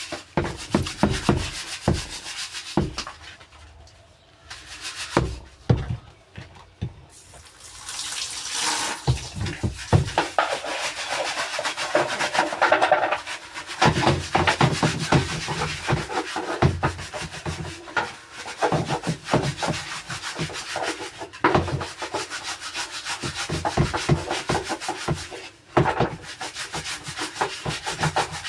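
A washing machine being scrubbed by hand, with quick repeated rubbing strokes and a short lull about four seconds in.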